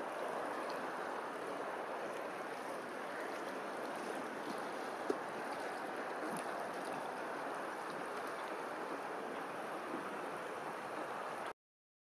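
Steady wash of lapping, rippling open water, with one faint click about five seconds in; it cuts off abruptly near the end.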